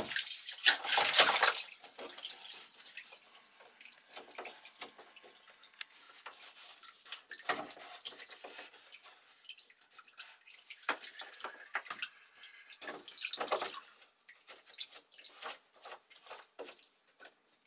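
Seawater gushing up through the open through-hull fitting of a paddlewheel speed/temp transducer as the blanking plug comes out, loudest in the first two seconds. It is followed by splashing, dripping and handling clicks as the sensor is pushed into the wet fitting.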